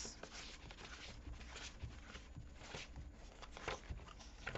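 Sheets of patterned paper and cardstock rustling and sliding against each other as a stack is leafed through by hand, with a few soft flicks and taps of the edges.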